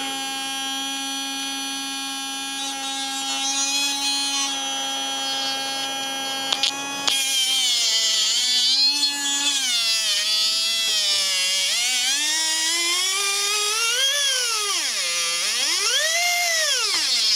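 Small brushed DC can motor running on a bench power supply with a steady, high whine. About seven seconds in, a screwdriver tip pushed into the slot in the side of the motor's can brings clicks and a scratchy crackle. The whine's pitch then swings down and up several times as the motor's speed changes, before settling back to the steady tone.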